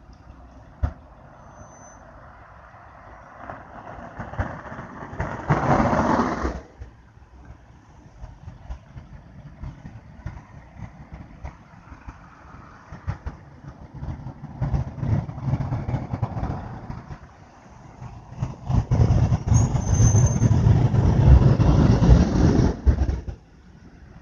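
Freeway traffic on wet, snowy pavement: engine rumble and tyre noise from slow and passing vehicles. Two louder passes stand out, a short one about five seconds in and a longer one that starts around nineteen seconds and stops suddenly near the end.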